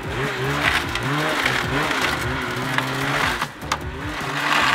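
Ski-Doo snowmobile's two-stroke engine running, its pitch rising and falling in repeated short revs of the throttle.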